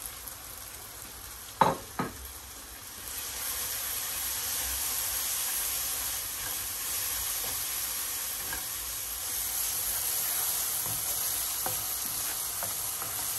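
Onion-tomato masala with freshly added ground spices sizzling as it fries in oil in a pot, with two sharp knocks a couple of seconds in. The sizzle grows louder about three seconds in and then stays steady.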